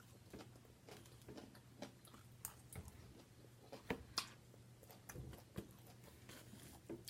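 A person chewing food quietly, with faint scattered mouth clicks and smacks.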